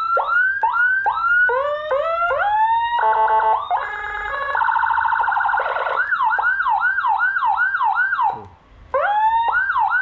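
Electronic siren from a 200-watt Whelen HHS replica siren module, stepped through several of its tones. First come quick rising sweeps, then about three seconds of a fast-stepping warbling tone, then rapid rise-and-fall sweeps about three a second. It cuts out briefly after about eight seconds and starts sweeping again.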